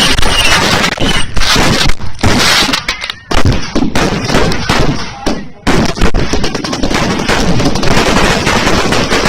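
Fireworks and firecrackers going off in a rapid, dense string of loud bangs and crackles, with two brief lulls.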